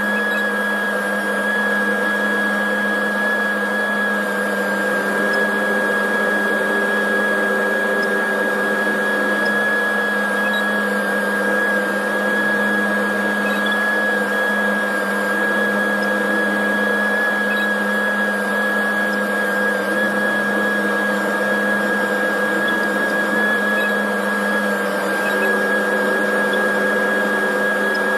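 John Deere tractor running steadily, heard from inside its closed cab: an even drone with a constant high whine over it and a lower hum that shifts slightly a few seconds in and again near the end.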